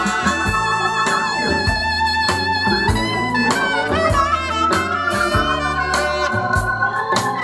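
Recorded band music playing: sustained melody notes over a bass line and a regular drum beat.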